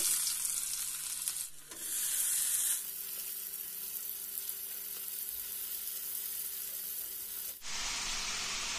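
Onion-tomato masala sizzling as it fries in hot oil in a kadhai: a steady frying hiss that changes level abruptly a couple of times.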